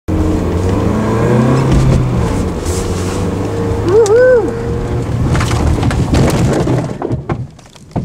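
Car engine running and pulling hard, heard from inside the cabin as the car accelerates, with a short rising-and-falling tone about halfway. The sound drops away near the end, with a few sharp knocks.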